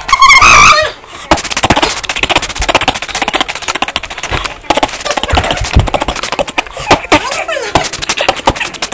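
A short loud shout, then a long run of rapid crackling clicks, many each second.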